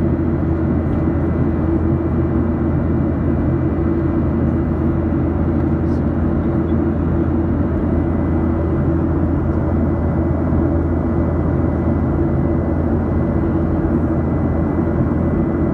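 Steady airliner cabin noise in flight: the constant drone of the jet engines and airflow past the fuselage, with a faint steady high whine.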